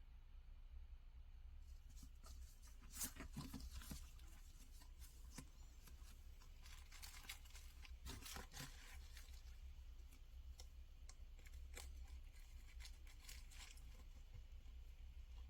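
Faint handling of packaging: scattered rustling, tearing and small clicks as a box and its contents are unwrapped, over a low steady hum.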